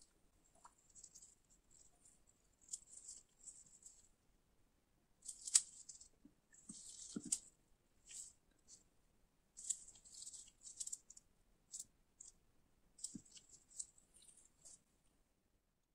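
Faint crinkling and rustling of nitrile gloves as gloved fingers handle and stretch a piece of chewed gum, in short irregular bursts, with a couple of soft low knocks.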